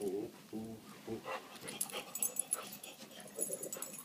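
Great Dane whimpering in a few short whines during the first second or so, then snuffling and breathing softly while being petted.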